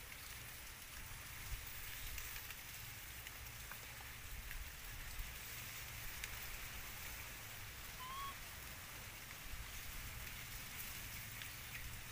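Baby monkeys lapping and smacking at soft food on a plate: faint scattered wet clicks over a steady outdoor hiss and low rumble. A single short chirp about eight seconds in.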